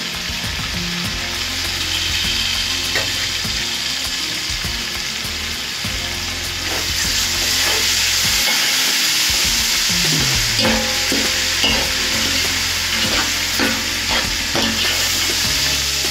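Meat, onions and masala sizzling as they fry in oil in a large aluminium pot, with the hiss growing louder about seven seconds in. From about ten seconds in there are short clicks and scrapes as a metal spoon stirs against the pot.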